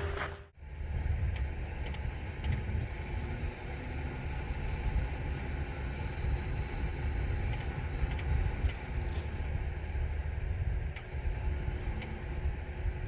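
Vehicle engine running with a steady low rumble, broken briefly by an edit cut about half a second in.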